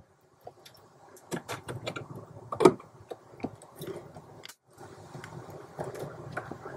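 Small metal clicks and clinks as a pin, washers and cotter pin are worked into the clutch pedal and push rod with pliers, one sharper click a little before the middle.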